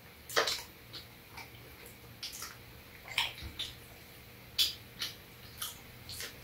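Eating sounds of cheese toast: open-mouthed chewing with wet lip smacks, and the toast being pulled apart by hand, heard as a string of short, irregular clicks and crackles.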